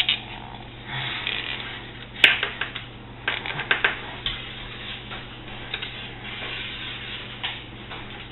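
Clicking and rattling of hands fitting a plastic wire tie around wiring on an oil burner, with a sharp click about two seconds in and a run of quick clicks soon after.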